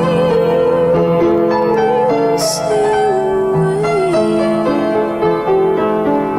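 Instrumental music led by keyboard: held chords under a slowly moving melody line with a slight waver, and a short hissing accent about two and a half seconds in.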